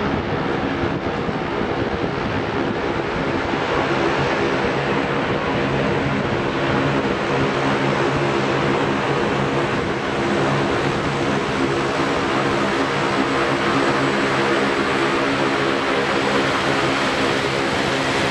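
Saab 340's twin turboprop engines at taxi power: a steady propeller drone made of several steady tones over a rushing hiss, holding at a constant level as the airliner taxis.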